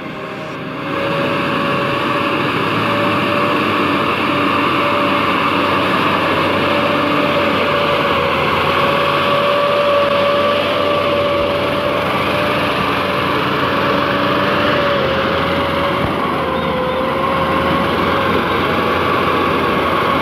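Toyota Land Cruiser pickup's engine held at high revs under heavy load in deep mud, a steady, high-pitched drone that wavers slightly in pitch. It gets louder about a second in.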